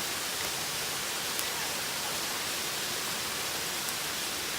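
Steady rushing of a mountain creek, an even hiss of flowing water.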